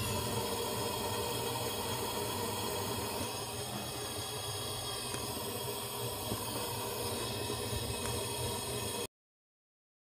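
Gas stove burner flame hissing steadily with a low hum, cutting off abruptly about nine seconds in.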